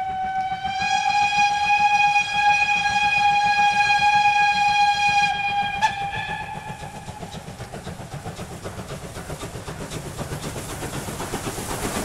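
Steam locomotive's whistle sounding one long blast, a steady pitch that steps up slightly about a second in and dies away about six or seven seconds in. Then the locomotive's rapid, even exhaust beats, with the rumble of the train, grow louder as it comes up and passes.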